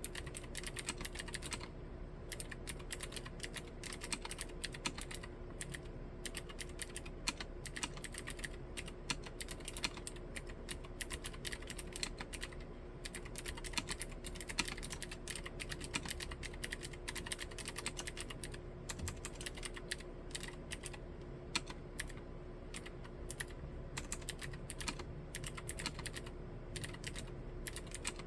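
Continuous fast typing on a Novelkeys NK87 Entry tenkeyless mechanical keyboard with Gateron Green clicky switches: a dense, uneven run of sharp key clicks.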